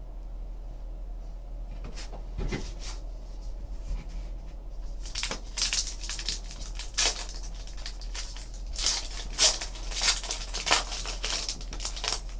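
Trading-card pack wrapper being crinkled and torn open by hand: a run of sharp crackling rustles that starts about two seconds in and grows dense from about five seconds on.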